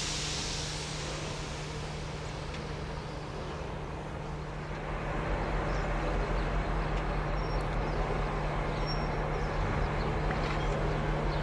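Steam hissing from the A2 steam locomotive fades over the first second or so over a steady engine hum. About five seconds in, the idling of diesel locomotives (N-class and T-class) becomes louder with a deep rumble.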